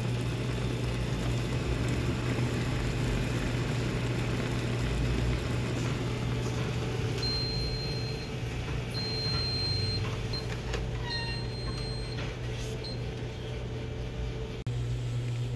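Automatic induction ramen cooking machine running with a steady hum, then giving several high beeps of about a second each, signalling that its cooking cycle has ended.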